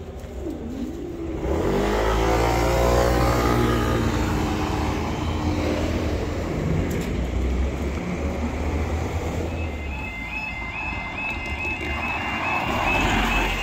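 Road traffic driving over a railway level crossing, one car engine pulling away loudly about two seconds in. About ten seconds in, the crossing's electronic warning alarm starts sounding: a rapidly repeating two-tone warble, signalling that the barriers are about to lower for an approaching train.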